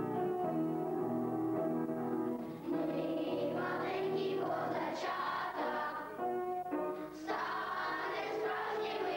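A group of young children singing together to an electronic keyboard accompaniment; the keyboard plays alone for the first couple of seconds, then the voices come in.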